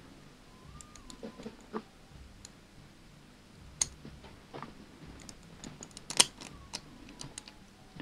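Cast-metal pieces of a Hanayama Cast Padlock puzzle clicking and tapping against each other as they are turned and shifted by hand: scattered light clicks, the sharpest about six seconds in.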